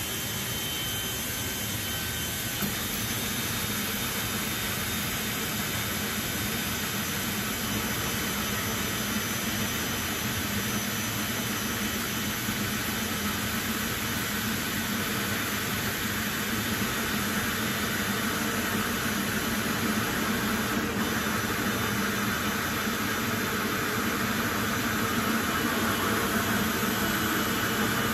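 Cordless drill turning a 3-inch hole saw at low speed as it cuts into the thin plastic wall of a storage tub: a steady whirring grind that grows gradually louder.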